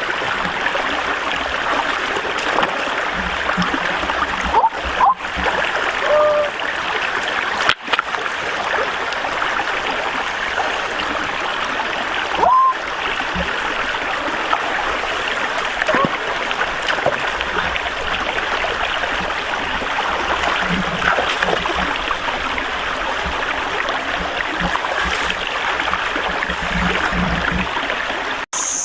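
Running stream water flowing steadily, with occasional small splashes.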